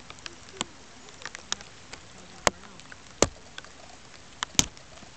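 Light rain falling: a steady hiss with irregular sharp taps of drops, three of them louder in the second half.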